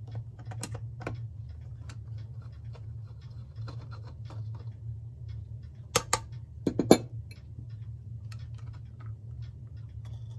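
Light metallic clicks and scrapes of a nut driver backing a small nut off a clock's motor housing. A few sharper clicks come about six to seven seconds in, the loudest sounds here. A steady low hum runs underneath.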